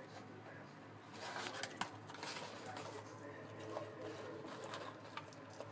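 Faint background voices over a low steady hum, with scattered light clicks and rustling.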